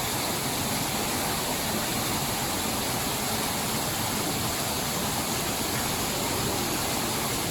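Steady rushing of a small waterfall pouring into a fish pool, the flow that keeps the water moving and aerated.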